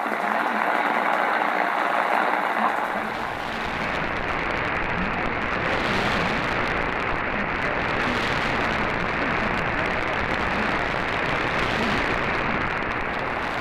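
Shortwave broadcast on 7570 kHz heard through a radio receiver: heavy static hiss with a faint voice buried in it. About three seconds in, the sound changes as the audio fades across to the second receiver, a low rumble joining under the hiss.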